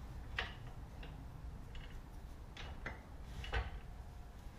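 Irregular light metallic clicks and knocks from hand tools against metal, about six in a few seconds, as a Subaru STI R180 rear differential is fitted from underneath the car. A faint low hum runs underneath.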